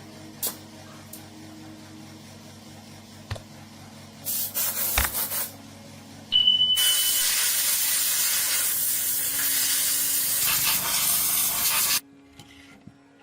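A steady mechanical hum with a few sharp clicks, then about six and a half seconds in a loud spraying hiss of pressurised air or water starts and runs for about five seconds before cutting off suddenly.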